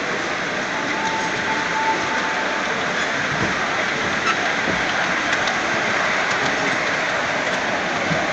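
5-inch gauge ride-on miniature train rolling steadily along its track, its wheels giving a continuous rolling noise with a few faint clicks over the rail joints. A faint high tone is briefly heard about a second in.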